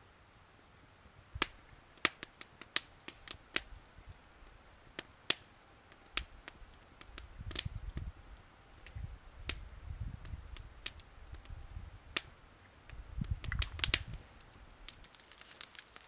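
Wood campfire crackling, with irregular sharp pops and snaps, a few of them loud. A low rumbling noise comes and goes through the middle stretch.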